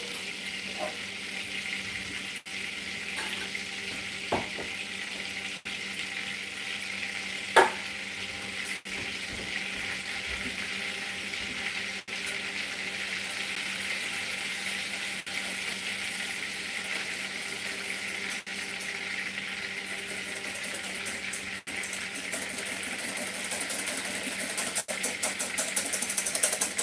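Butter and oil sizzling and bubbling as they melt in a skillet over a gas burner, the sizzle growing louder near the end. One brief knock about seven and a half seconds in.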